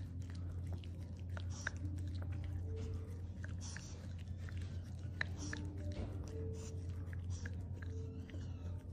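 Small dog licking liquid supplement off a plastic spoon: scattered small wet licking and smacking clicks, over a steady low hum.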